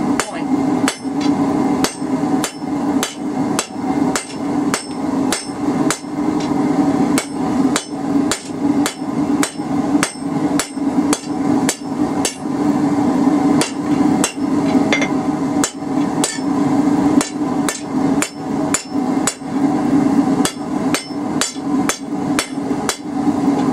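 Blacksmith's hand hammer striking a red-hot half-inch square steel bar on an anvil, at about two even blows a second, drawing out a taper. A steady hum runs underneath the blows.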